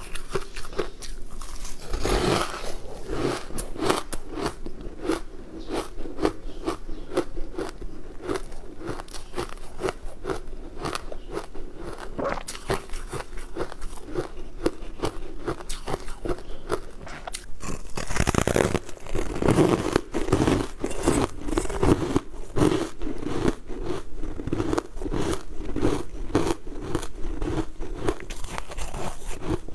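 Refrozen ice being bitten and chewed close to a clip-on microphone: a rapid, dense run of crisp crunches, with louder bites about two seconds in and a little past the middle.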